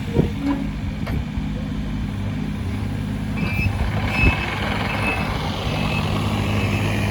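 Takeuchi TB230 mini excavator's diesel engine running steadily, with a travel alarm beeping in short high beeps from about halfway through. A single knock sounds a little after the beeps start.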